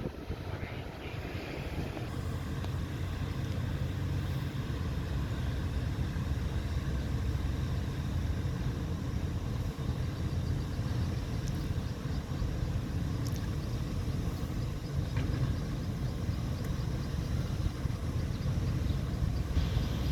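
Diesel engine of heavy earthmoving machinery running steadily, with most of the sound low in pitch, and a few faint knocks about halfway through.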